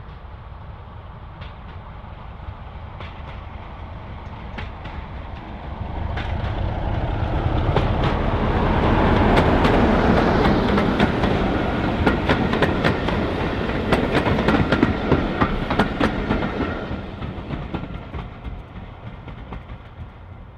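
Class 33 diesel locomotive with its Sulzer eight-cylinder engine hauling a passenger train past, growing louder as it approaches and then fading away. As the coaches go by, their wheels clatter over the rail joints in quick sharp clicks.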